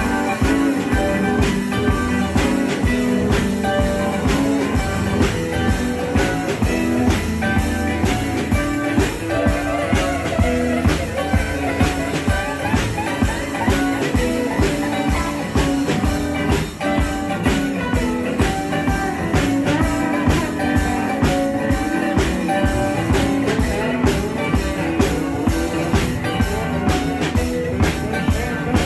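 Live rock band playing: guitar over a drum kit keeping a steady, even beat.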